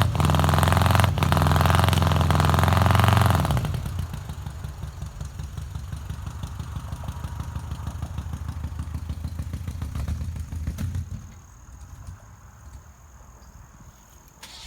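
A car engine running loud and steady for about three and a half seconds, then dropping to a quieter, pulsing low run that falls away about eleven seconds in.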